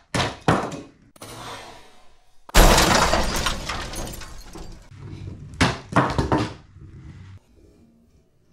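Glass-shattering crash sound effect: a sudden loud smash about two and a half seconds in that trails off over a couple of seconds, followed by a few more sharp clatters.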